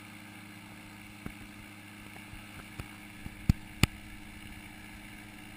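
Powered parachute engine running steadily with an even drone. A few sharp taps cut through it, the loudest two in quick succession a little past the middle.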